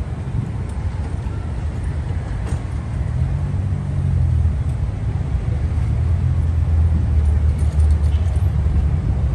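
City street traffic: a steady low engine rumble from passing and waiting cars, growing louder about three seconds in.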